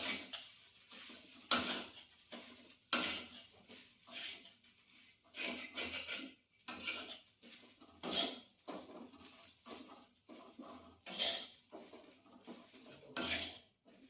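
A spatula scraping and clattering against a frying pan as fried rice is stirred, with separate strokes about every second at uneven spacing.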